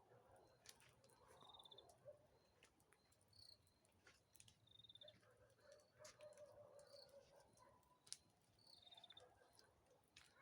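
Quiet campfire crackling with scattered sharp pops, while a faint, short, high-pitched trill from a night animal repeats about every two seconds.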